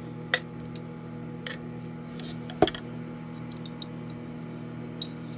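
A few light knocks and taps of a utensil stirring dye in glass mason jars, the loudest about two and a half seconds in, over the steady hum of a running microwave oven.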